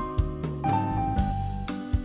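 Background music: a light jazzy tune with piano or keyboard over a steady drum beat.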